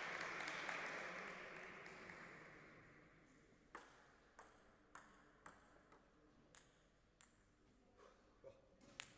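Table tennis ball bounced over and over, sharp pings with a short high ring about every half second, as a player readies to serve. Before that, a wash of applause dies away over the first three seconds.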